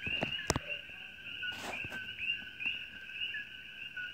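Night chorus of many coqui frogs giving their two-note "ko-KEE" calls, a lower note followed by a short rising chirp, overlapping several times a second. A sharp click sounds about half a second in, and a brief rustle near the middle.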